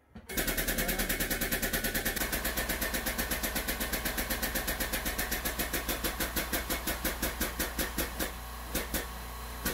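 Shop air compressor kicking on: its motor starts just after the beginning and runs with a rapid, even pulsing over a steady low hum. Near the end the pulses slow and thin out to a few separate ones while the hum continues.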